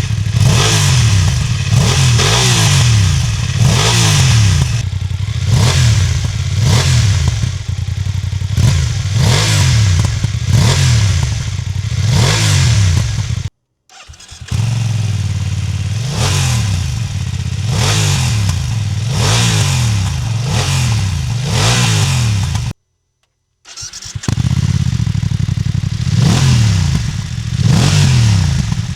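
BMW F900R parallel-twin engine revved at standstill in quick blips, about one a second, each rising and falling in pitch. The sound cuts out twice, briefly, about halfway through and again near the end.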